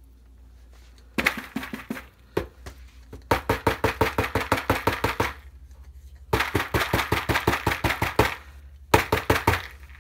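Rapid runs of sharp, hard clicks, about ten a second, in four bursts lasting one to two seconds each. The loudest crack comes near the end. A faint low hum runs underneath.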